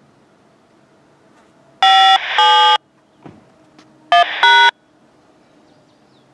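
Scanner radio tuned to railway traffic giving two pairs of loud electronic beep tones, one pair about two seconds in and another about two seconds later, each pair a higher tone followed by a lower one, over faint background hiss.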